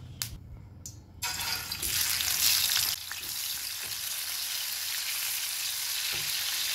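Boiled chicken pieces going into hot oil in a pot. After a couple of light clicks, a loud sizzle starts about a second in and settles into a steady frying hiss.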